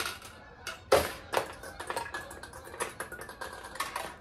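Steel balls in a vintage Heiwa Single Shot pachinko machine, launched with the handle and clattering down through the playfield nails: a run of quick sharp metallic clicks and rattles, with a louder clack about a second in.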